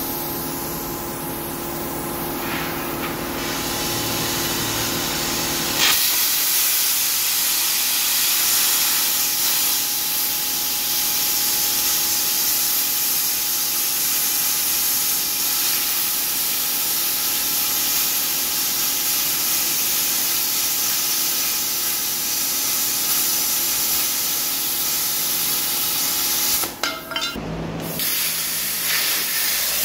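Eastwood Versa Cut 60-amp plasma cutter arc hissing steadily as it cuts through a steel truck frame. A steady hum comes first; the cutting hiss starts about six seconds in, breaks off briefly near the end and starts again.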